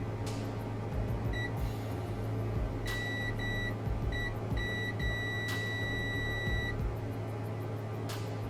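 Multimeter continuity beeper sounding in short, uneven beeps and then one long beep of about a second and a half as test probes make and break contact on the phone board, with a few sharp clicks and a steady low hum underneath.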